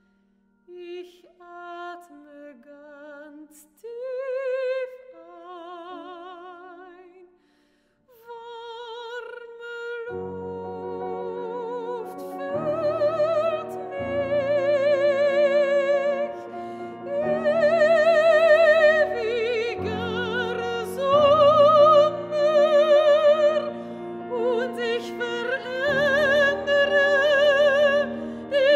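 Mezzo-soprano singing a German art song with a wide vibrato, alone at first in short phrases with pauses between them. Piano enters about ten seconds in with sustained chords, and the voice rises higher and grows louder.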